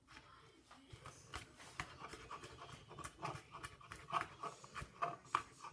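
Chef's knife chopping garlic cloves on a plastic cutting board: quick, uneven taps of the blade against the board, a few a second, starting about a second in and growing louder toward the end.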